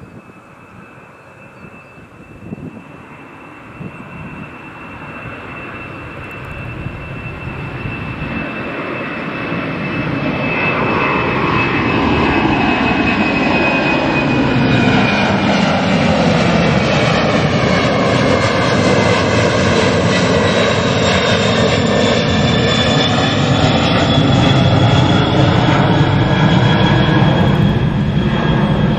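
The twin jet engines of a UPS Boeing 767-300 freighter at takeoff power, climbing out and passing overhead. A high fan whine slowly drops in pitch while the engine rumble grows louder over the first dozen seconds. It then stays loud, with a sweeping, phasing quality as the jet goes over.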